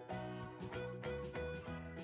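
Quiet instrumental background music, a steady run of notes changing about three times a second.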